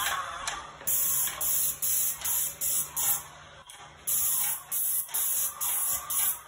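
Airless paint spray gun hissing in a quick series of short bursts, about two to three a second, as the trigger is pulled for each pass, with a break of about a second midway.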